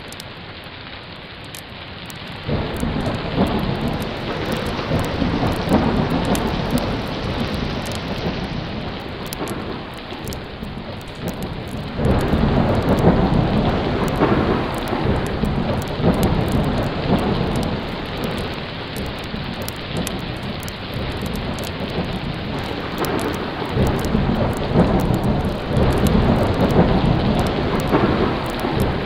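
Thunderstorm sound effect: steady heavy rain with rolling thunder rumbling underneath. The level jumps up abruptly about two and a half seconds in and again near the middle, where the loop is spliced.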